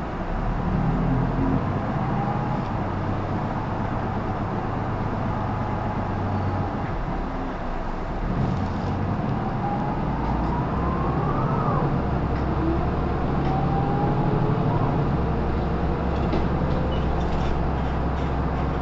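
Isuzu PKG-LR234N2 city bus running, its four-cylinder turbo diesel droning and changing pitch in steps as it pulls away and shifts. About ten seconds in, a whine climbs steadily and then drops away.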